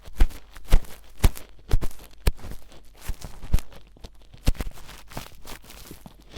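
Ear pick scraping and rustling in an ear, heard very close: a run of irregular scratchy strokes about twice a second, with a short pause a little past the middle.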